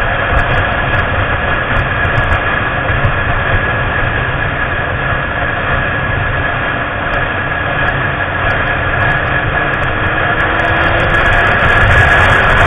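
Yamaha YZF-R6 motorcycle under way, its inline-four engine running steadily with wind noise, growing louder near the end.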